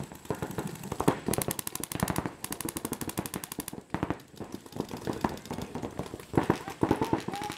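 Paintball markers firing in rapid strings of about a dozen shots a second, several players shooting in overlapping bursts that start and stop.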